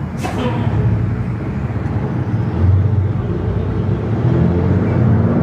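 Road vehicle's engine running as it pulls away and accelerates: a low steady rumble that grows louder about two and a half seconds in, with a brief sharp sound right at the start.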